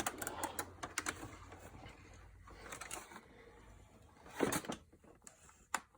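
Light clicks, taps and rustling of objects being handled, with a louder knock or scrape about four and a half seconds in.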